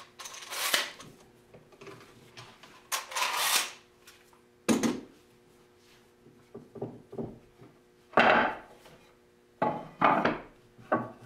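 Steel bar clamps being loosened and pulled off a glue-up, with scraping and sliding of the metal clamp jaws and clattering as the clamps are set down. Several sharp wooden knocks follow in the second half as the cauls and glued boards are lifted and handled.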